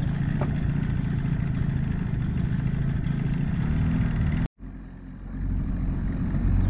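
Small tiller outboard motor on an aluminium fishing boat running steadily just after being pull-started. After a short break it runs again, getting louder about five seconds in as the boat gets under way.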